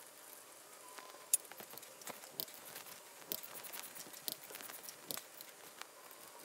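Light metallic clicks and clinks of a wrench and socket working the connecting-rod cap bolts on a bare engine block, irregular and scattered, with one sharper click about a second and a half in.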